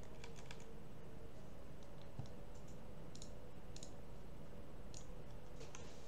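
Computer mouse clicking now and then, about eight single clicks spaced irregularly, over a steady background hiss.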